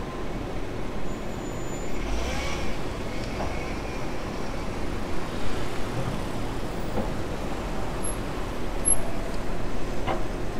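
Light street traffic: a steady background rumble of the city with a few cars passing slowly.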